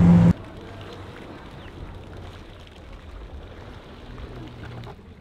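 A WaveRunner jet ski's engine running loud and close with wind, cut off abruptly a fraction of a second in. It gives way to a much quieter wash of water with a faint, distant engine hum that swells slightly near the end.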